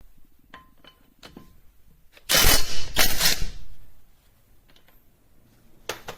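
Cordless impact wrench hammering in a loud burst of about a second and a half, preceded by a few small clicks, with a second short burst near the end.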